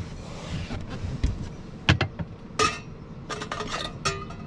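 Several sharp clinks and knocks of hard objects being handled, a few of them ringing briefly like metal, clustered in the second half.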